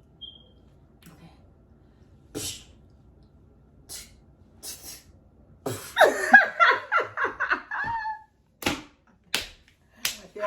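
Several short, sharp clicks or snaps a second or so apart, with a loud burst of laughter lasting about two seconds near the middle.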